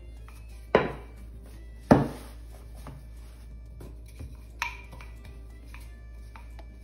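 Wooden rolling pin knocking against the countertop and dough while rolling out pastry dough: two sharp knocks a little over a second apart, then a lighter one near the end.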